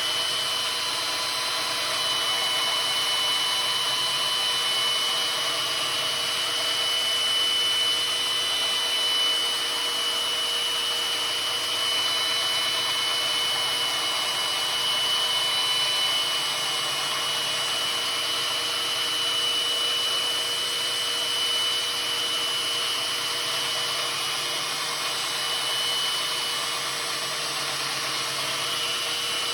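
Electric power tool running steadily, a high motor whine over an abrasive hiss, as it sands down the steel edge of an old splitting maul to take out a large nick.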